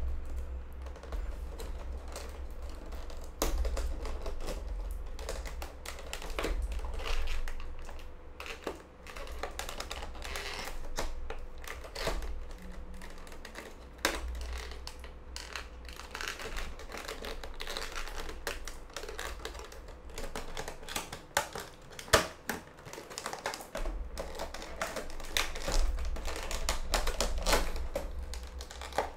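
Stiff clear plastic clamshell packaging being handled and pried open: irregular crackling of the plastic with many sharp clicks.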